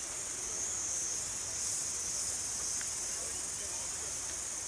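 Insects droning steadily outdoors, a continuous high-pitched hiss-like chorus that holds level throughout.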